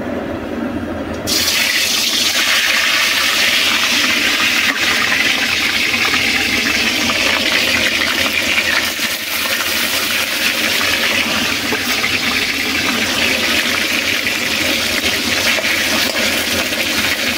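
Pieces of katla fish sizzling in hot oil in an aluminium kadhai. The sizzle starts suddenly about a second in, as the fish goes into the oil, then holds steady.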